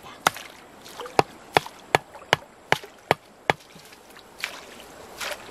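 Machete chopping: a run of sharp, evenly spaced strikes, about three a second, then stopping.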